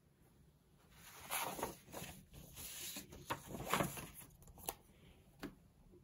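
Paper rustling as a large glossy fold-out brochure is folded up and turned back over, starting about a second in. It dies down with a couple of sharp paper clicks near the end.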